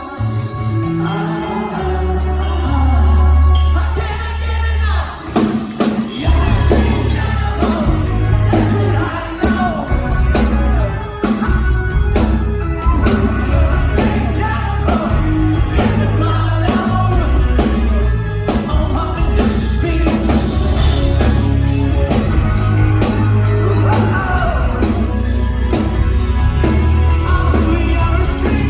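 A live rock band playing with singing. Held chords carry the first few seconds, then a steady drum beat comes in about six seconds in.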